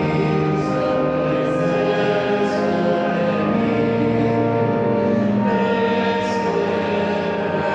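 Church music in the cathedral: long, steady held chords that shift to new chords every couple of seconds.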